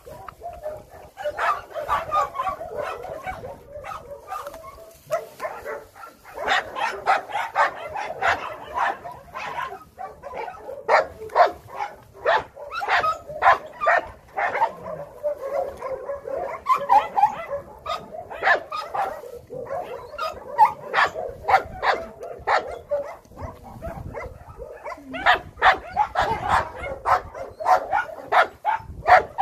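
Shelter dogs barking in the kennels: many short barks in quick runs, with a few brief lulls.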